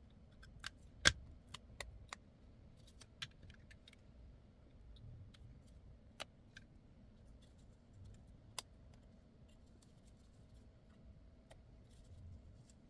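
Scattered light clicks and taps of small hard objects, the sharpest about a second in, over a faint low rumble.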